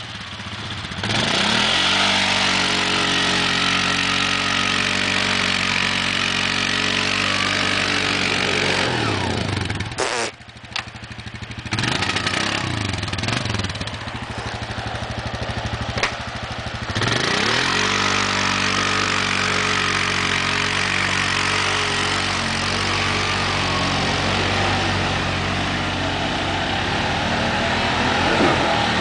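ATV engine revving hard and held at high revs while the quad is stuck in deep mud. It eases off with a short lull around ten seconds in, then revs up again around seventeen seconds and stays high.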